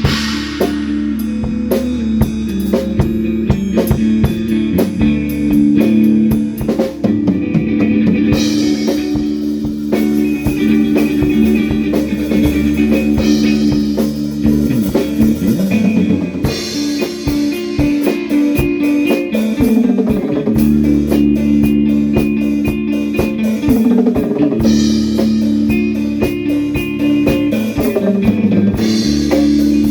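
Instrumental rock jam: a drum kit with bass drum and rimshots keeps a busy beat under guitar holding sustained chords.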